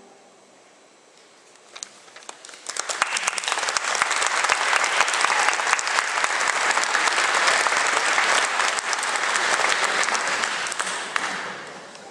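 Audience applauding. After about two seconds of quiet, a few scattered claps start, then full applause sets in and dies away near the end.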